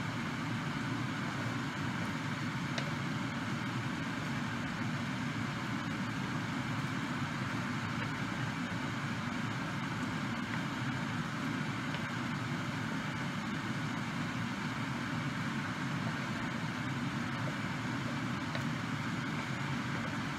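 Steady frying noise from a pan of pancit canton noodles and vegetables being stir-fried and tossed with a wooden spatula, with a faint click or two.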